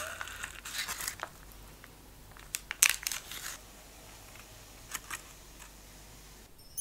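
Baking parchment crinkling as it is peeled back from a baked Basque cheesecake, with a few sharp crackles of the paper about three seconds in and again near five seconds.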